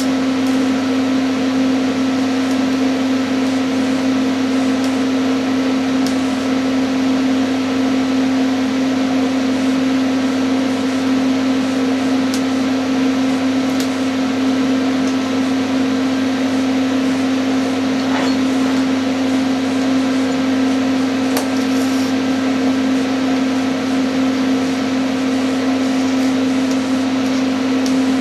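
Steady electrical hum with a low droning tone and hiss, with a few faint clicks: welding equipment running while a broken casting is built up with silicon bronze.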